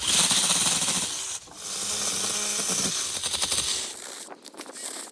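DINSHARE 20-volt cordless mini chainsaw with a 4-inch bar, running and cutting into wood with a rasping sound over the motor's steady hum. It eases off briefly about a second and a half in, cuts again, and stops about four seconds in.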